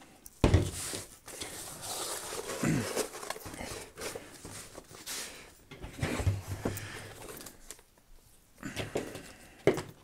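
Unboxing handling noise: a knock about half a second in as the oscillating tool is set on the table, then irregular rustling, scraping and small knocks as a molded paper-pulp tray holding a charger and battery is lifted out and handled.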